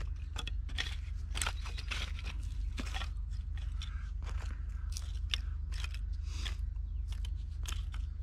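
Dry sticks and split kindling being handled and laid onto a stick base on the ground, with leaf litter crunching under hand and knee: an irregular run of short clicks, snaps and crackles.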